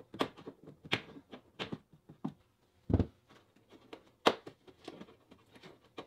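Plastic push-clips in a car trunk lid's trim being pried out with a trim tool: a string of sharp plastic clicks and knocks, with a dull thump about three seconds in.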